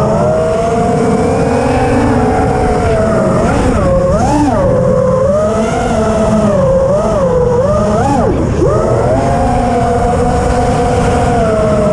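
FPV quadcopter's brushless motors and propellers whining from onboard, the pitch rising and falling with the throttle and dipping sharply about four seconds in and again near eight seconds.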